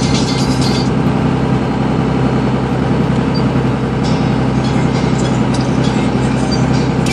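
Steady engine and road noise of a moving vehicle, heard from inside the cab: an even, unchanging drone with no rise or fall.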